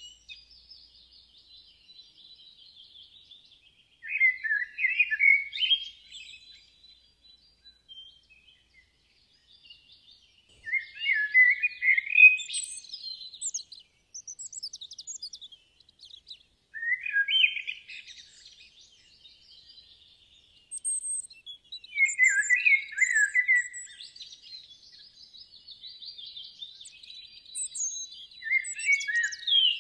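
Songbirds singing: one bird repeats a loud warbled phrase of about two seconds every five to six seconds, with fainter, higher twittering from other birds in between.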